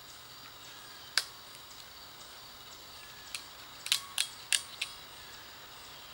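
Hand wire crimper clicking as it squeezes butt connectors onto the wires: one sharp click about a second in, then a quick run of five clicks a little after the middle.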